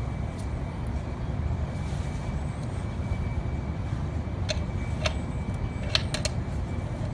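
Steady low rumble throughout, with a few sharp metallic clicks in the second half as a wrench works the quick-bleed line fitting on a T56 transmission's clutch slave cylinder.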